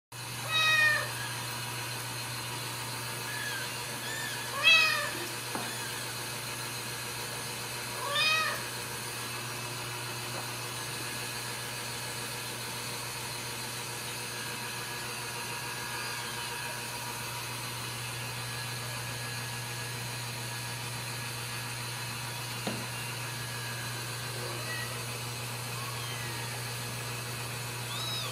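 Ragdoll cat meowing: three loud calls in the first nine seconds, each rising then falling in pitch, then only a few faint mews, over a steady low hum. The meows are a hungry cat asking for breakfast.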